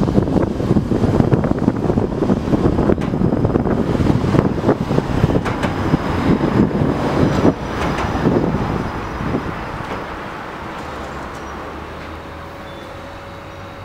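A 71-623.02 tram running on its rails, heard from inside the car: a dense rumble of wheels on track with a clatter of rattles and clicks. From about eight seconds in it grows much quieter and settles to a low, steady hum.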